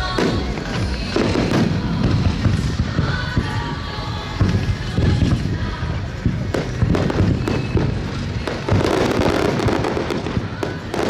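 Fireworks display at a rapid launch rate: many shells bursting in quick succession, a continuous rumble of booms with sharp cracks layered over it.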